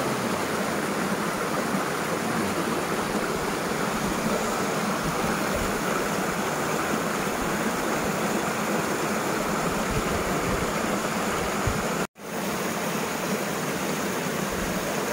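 Steady rush of a flowing river or stream, an even water noise that holds at one level, cut off for an instant about twelve seconds in.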